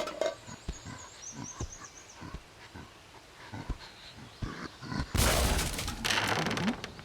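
Rummaging and rustling through a bag, with scattered small clicks and knocks, then a louder rustle lasting about a second, about five seconds in.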